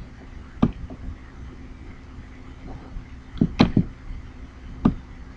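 About six sharp computer mouse clicks, three in quick succession about three and a half seconds in, over a steady low electrical hum.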